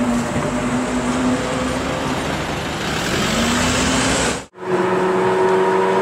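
A supercar engine running with a steady note over road noise, rising a little in pitch toward the middle. After a brief dropout about four and a half seconds in, a Lamborghini Aventador's V12 engine drones with a steady note that climbs slowly as the car drives.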